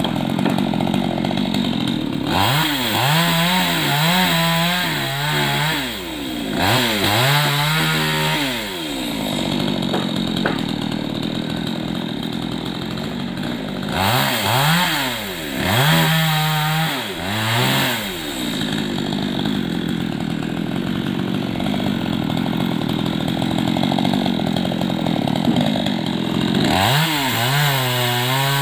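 Chainsaw engine running loud, revving up and down several times in clusters, with longer stretches of steady running between.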